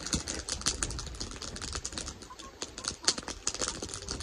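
Wood campfire crackling: rapid, irregular snaps and pops, over a low rumble of wind on the microphone.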